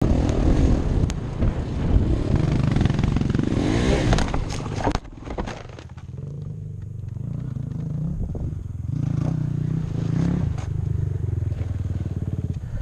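GasGas dirt bike engine running hard over rough ground with wind on the microphone, then a cluster of knocks and clatter about four to five seconds in as the bike goes into a ditch. After that the engine keeps running at low revs, rising and falling.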